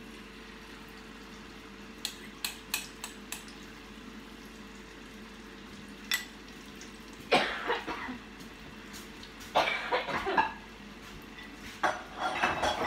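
A metal spoon tapping and scraping against a ceramic mixing bowl, a quick run of about four taps and one more a few seconds later, then thick batter being stirred in the bowl in three louder, rougher bursts over the second half. A faint steady hum lies underneath.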